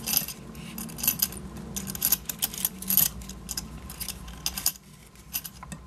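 Metal buckle and strap fittings of a leather camera hand strap clinking and rattling as the strap is pulled through. There is a quick run of light clicks that thins out in the second half.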